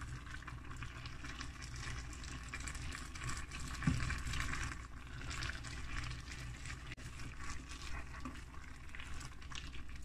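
A thick dried-fruit stew simmering in a pot, bubbling and crackling as a wooden spoon stirs through it, with a soft knock about four seconds in.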